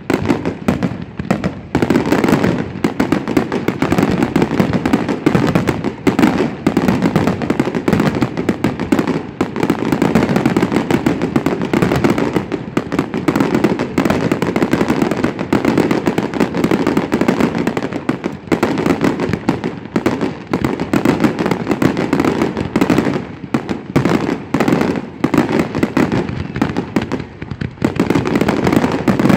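Aerial fireworks going off in a dense, continuous barrage: many overlapping bangs a second mixed with crackling, with no pause.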